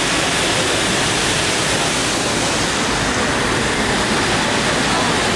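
Waterfall pouring into the river with churning white water below it: a loud, steady rush.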